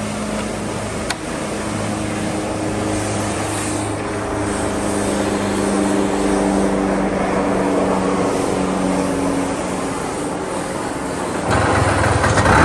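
A 1996 Vespa PX 200 E's single-cylinder two-stroke engine idling steadily, with a single click about a second in. Near the end it gets louder as it is revved.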